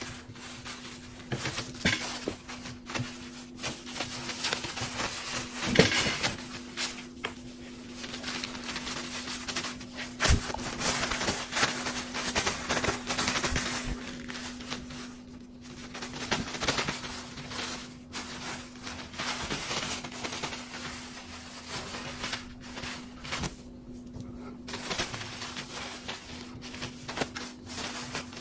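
Paper napkin rustling and crinkling in irregular bursts as a kitten bites, carries and bats at it, with scattered sharp taps, over a steady low hum.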